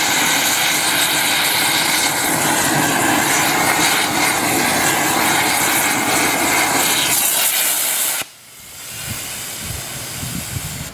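Rail thermite-weld preheating torch blowing into the mould, a loud steady roaring hiss that cuts off suddenly about 8 seconds in.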